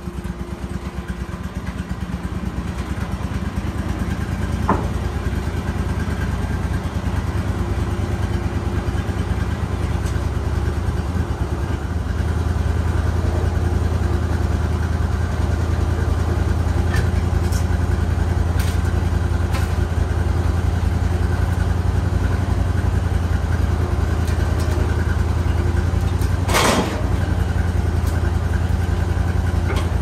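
Homebuilt sawmill's engine running steadily, growing louder over the first dozen seconds and then holding. A few sharp clicks come through, the loudest near the end.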